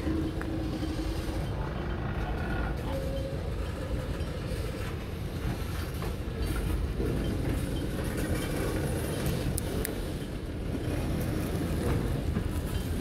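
Freight train of tank cars rolling past: a steady low rumble of steel wheels on rail, with a few sharp clicks.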